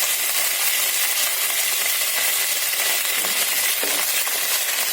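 Mustard seeds and curry leaves sizzling in hot oil in a pan, a steady hiss with crackling pops.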